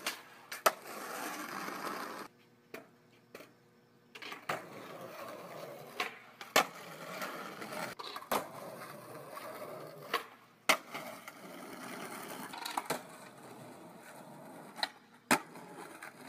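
Skateboard wheels rolling on concrete, broken about ten times by sharp clacks of the board popping and landing.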